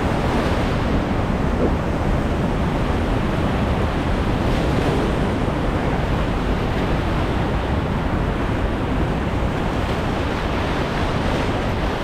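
Steady rush of whitewater rapids on a river, loud and unbroken.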